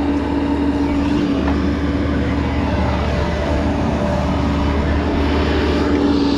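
Engine running steadily at constant speed with a steady hum, while brush is being chopped up.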